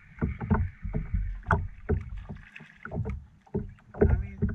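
Irregular knocks and water splashes, several a second, over low thumps: the sounds of a small fishing boat or kayak on the water being moved or handled.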